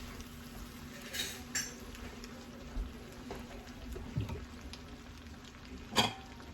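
Spaghetti in garlic sauce being stirred in a pan, with a few light clinks and scrapes of the utensil against the pan and a sharper clink near the end, over a steady low hum.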